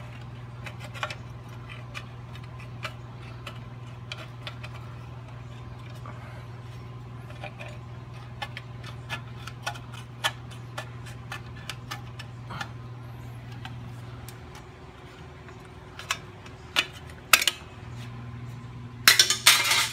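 Hand snips cutting through a thin sheet-steel brake dust shield on a truck's front hub, in many short irregular clicking snips over a steady low hum. A few louder metal clanks come near the end.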